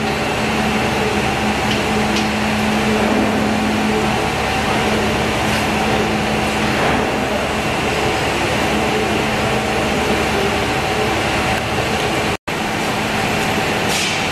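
Steady mechanical hum over a constant wash of background noise, with no distinct single event; it cuts out for an instant near the end.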